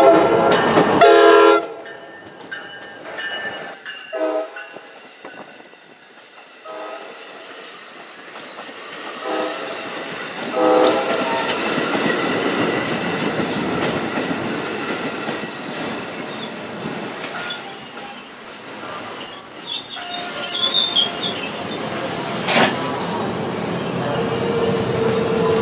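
NJ Transit Multilevel commuter train: the cab car's horn sounds a long blast, then several short blasts as it nears the crossing. The double-deck coaches then run past close by, with a high, steady squeal from the wheels starting about halfway through.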